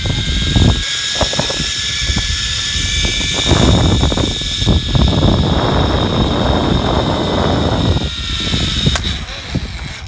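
Zip line trolley running fast along the steel cable with a steady high whine, under heavy wind rumble on the microphone. It dies down near the end, with a sharp click about nine seconds in.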